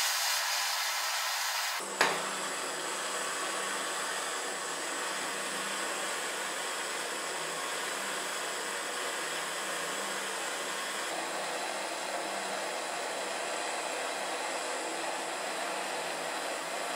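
Steady rushing hiss, like a blower or torch flame, with a low hum underneath. A sharp click about two seconds in changes it to a slightly fuller, lower tone that then carries on evenly.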